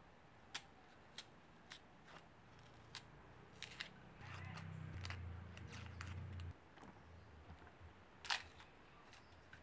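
Small knife peeling the dry, papery skin off red onions: scattered sharp crackling clicks and snicks, the loudest near the end. A low hum runs for about two seconds midway.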